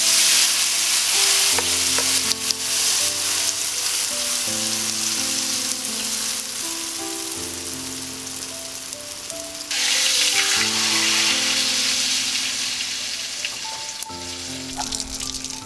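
Okoy fritter batter sizzling loudly in hot oil in a wide flat pan as it is poured in and spread with a spatula. The sizzle eases, surges again about ten seconds in, and dies down near the end.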